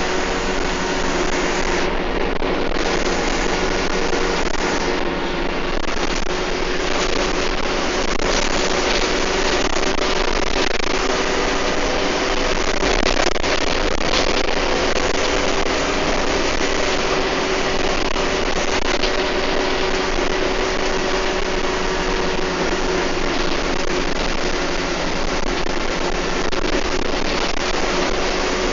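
Bus running at speed, heard from inside the bus: steady engine drone and road noise, with a steady whine that rises and falls a little.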